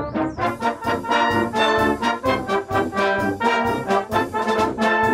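Brass band playing a tune in a steady rhythm, with horns and trombone.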